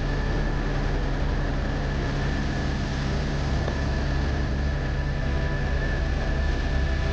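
Helicopter in flight, heard inside the cockpit: a steady, loud rotor and engine drone with a thin, steady high whine over it.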